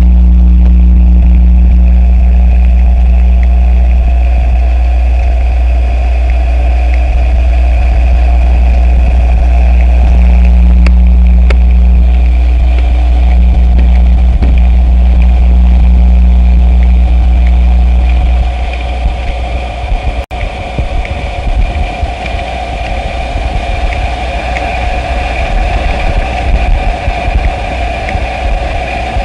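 Experimental noise music: a loud, steady low droning rumble with a hum above it, which drops out about eighteen seconds in, leaving a rough crackling texture with mid and high tones.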